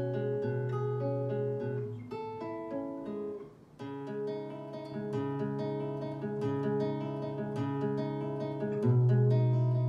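Acoustic guitar music played back through a Sonus Faber Toy Tower floorstanding speaker driven by a home-built KT120 valve amplifier, heard in the room. The plucked notes thin out and briefly pause a few seconds in, then pick up again, with a loud low note near the end.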